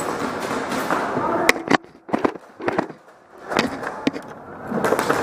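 Airsoft guns firing during indoor play: a scatter of sharp pops and cracks from shots and BB impacts, several close together through the middle seconds, with indistinct voices over the first second or so.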